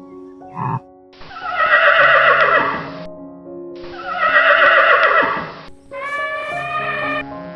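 A horse whinnying twice, each call lasting about two seconds and falling in pitch toward its end, over background music. A short grunt comes just before the first whinny, and a steadier, even-pitched animal call comes near the end.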